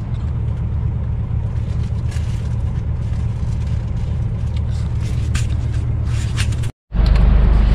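Scania R truck engine idling with a steady low rumble, with a few faint ticks. It breaks off for a moment near the end and comes back louder.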